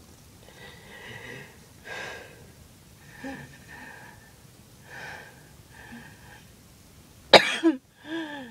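A woman's wheezy breathing, faint whistling breaths about once a second, then a loud burst of two hacking coughs about seven seconds in and a shorter voiced cough near the end. This is asthmatic wheezing and coughing after skipped breathing treatments.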